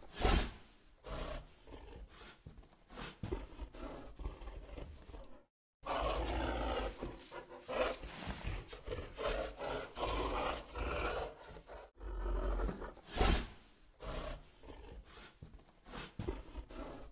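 Dinosaur roar sound effects from an augmented-reality dinosaur app: a run of uneven roars and growls, with the sound cutting out completely twice, about five and a half and twelve seconds in.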